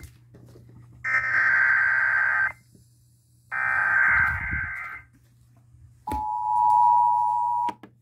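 Emergency Alert System header data bursts played through a radio: two harsh buzzing bursts of about a second and a half each. About a second later comes the steady two-tone attention signal, held for under two seconds before it cuts off, followed by a few clicks.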